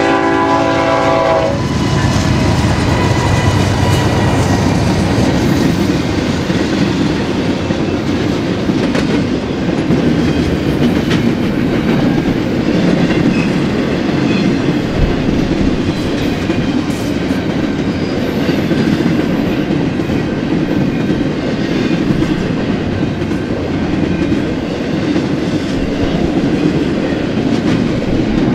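BNSF freight locomotive's air horn sounding at a grade crossing and cutting off about a second and a half in. Then a double-stack intermodal freight train rolls steadily past, with loud wheel-on-rail rumble and rattling cars.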